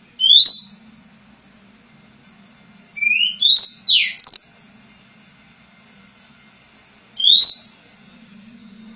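Oriental magpie-robin giving short, loud, rising whistled calls: one just after the start, a quick run of four about three seconds in, and another about seven seconds in. The calls serve as a lure sound to set a silent magpie-robin singing.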